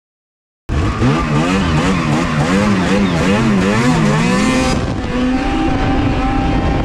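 Snowmobile engine revving up and down over and over, its pitch swinging rapidly, then holding a steadier high pitch about two-thirds of the way through. It starts abruptly after a moment of silence.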